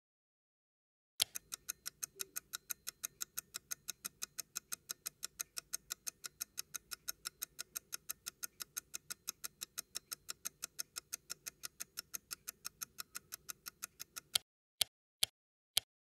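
Rapid, even mechanical clicking, about five clicks a second, over a faint low hum. It stops abruptly near the end, and three slower, single clicks follow.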